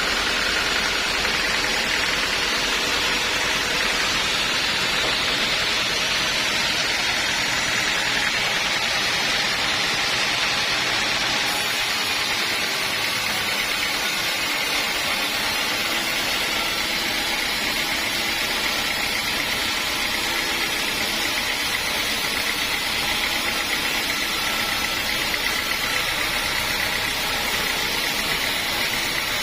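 Sawmill saw running steadily: an even mechanical noise with a faint high steady tone that shifts slightly higher about halfway through.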